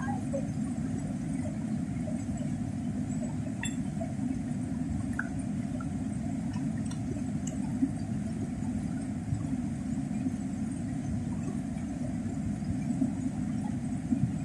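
Swollen, muddy river rushing past: a steady, even rush of water, with a few faint clicks.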